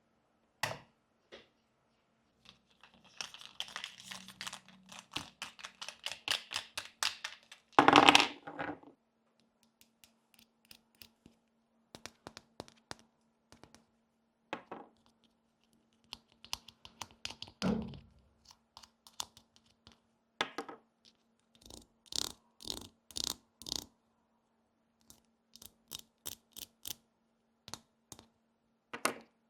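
Small miniature toy pieces handled by hand: scattered clicks and taps, a run of light rustling and scraping early on, and one louder thunk about eight seconds in.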